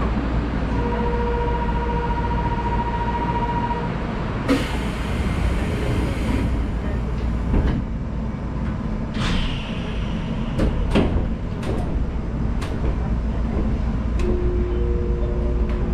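Chiba Urban Monorail 1000 Series car standing at a platform, heard from the cab: a steady low hum from the car's equipment, with a held two-note beep starting about a second in. A burst of air hiss comes a few seconds later, then several sharp clicks from the cab. Near the end a steady tone from the traction equipment sets in as the train starts to pull away.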